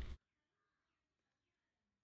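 Near silence: a man's narrating voice cuts off just after the start, and nothing else is heard.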